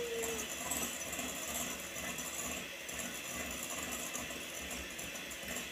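Electric hand mixer running steadily, its beaters whisking egg whites and sugar into meringue in a bowl.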